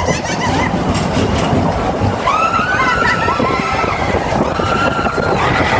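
Roller coaster train running fast along its track, a loud steady rumble and rattle heard from a seat in the car, with several rising-and-falling high cries over it.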